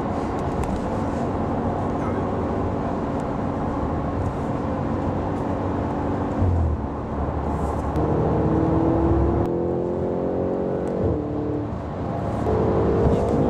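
Audi RS5's 4.2-litre V8 with sport exhaust running steadily, then accelerating from about eight seconds in. Its pitch rises, drops at a gear change and rises again.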